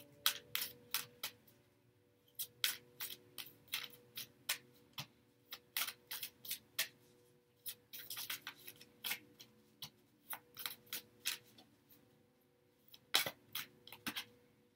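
A deck of oracle cards being shuffled by hand: a long run of short, crisp card snaps and flicks at an irregular pace, with a couple of short pauses and a louder flurry near the end.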